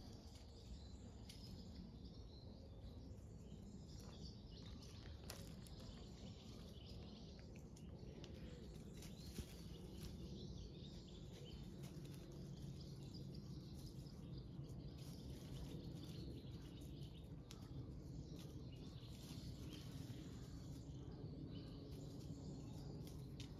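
Quiet outdoor ambience: small birds chirping in the distance over a low steady background rumble, with a few faint clicks and rustles.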